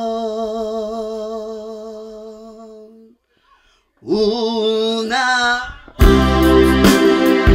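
A male singer holds a long note with vibrato into the microphone over a sustained keyboard tone, fading out about three seconds in. After a second's pause he sings another held note. Then loud keyboard-led music with a beat comes in about six seconds in.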